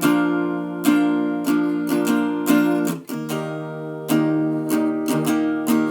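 Acoustic guitar strumming chords in a steady rhythm, the instrumental intro of a song.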